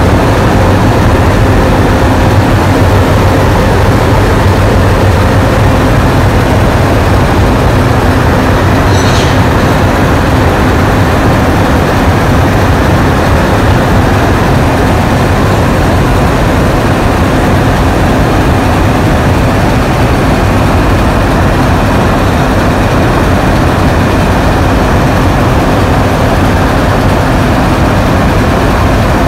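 Diesel engines of coupled locomotives, a 442 class and a yellow SSR unit, running steadily at close range, a loud even rumble with a low hum.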